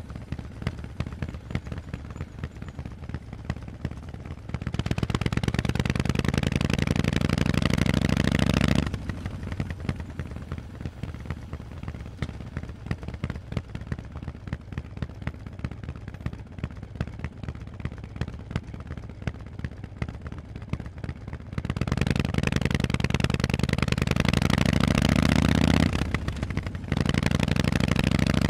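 Harley-Davidson Forty-Eight's air-cooled 1200 cc V-twin running through Vance & Hines exhaust pipes while riding. It pulls loud and rising in pitch under throttle twice, with a long, quieter, rapidly pulsing stretch off throttle between. Near the end the sound briefly drops, then pulls again.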